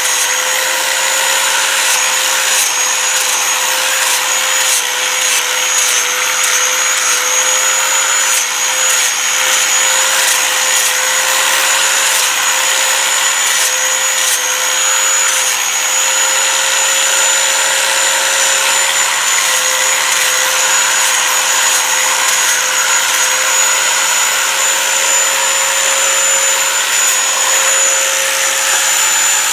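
Corded angle grinder fitted with a sanding disc running steadily while sanding a chainsaw-carved wooden pumpkin: a constant motor hum and high whine under the rasp of the disc on the wood, the pitch wavering slightly as the disc is pressed on.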